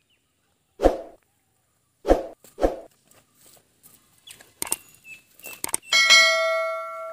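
Subscribe-button animation sound effects: three soft thuds, then a run of mouse clicks, and near the end a notification-bell ding that rings on and fades.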